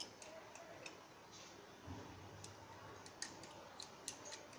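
Faint, scattered small clicks and ticks from a small screwdriver working the screws of a smartphone's plastic midframe, about seven in all.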